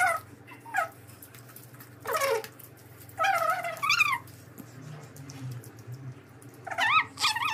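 A cat meowing several times, short high calls that rise and fall, over a steady low hum.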